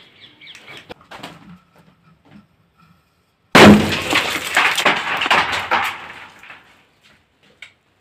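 A large VIP bomb firecracker goes off about three and a half seconds in, with one sharp blast that blows apart the clay pot set over it. Shards clatter and rattle down for two or three seconds afterwards.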